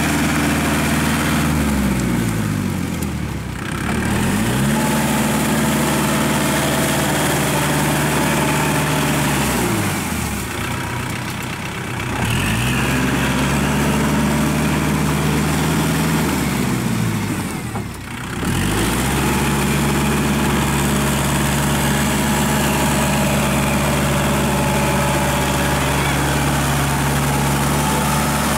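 Kubota L5018 tractor's diesel engine running steadily while it drives a rotary tiller through wet paddy mud. Three times the engine note drops in pitch and then climbs back up.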